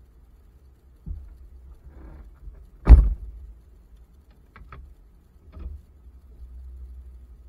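Heavy thump about three seconds in, with a few lighter clunks around it, from the tow truck as its operator works at it, over the low steady rumble of the truck's idling engine.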